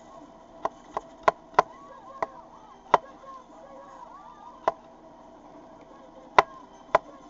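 Chef's knife chopping garlic cloves on a wooden cutting board: sharp, irregular knocks of the blade striking the board, about nine in all, coming quickly in the first two seconds and more sparsely after.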